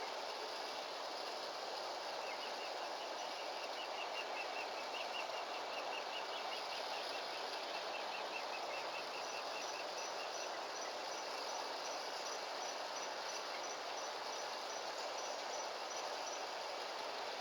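Steady outdoor background noise with small animals chirping over it. A fast run of high chirps fades out about ten seconds in, overlapping a slower series of very high, evenly spaced ticks, about three a second, that starts near the middle.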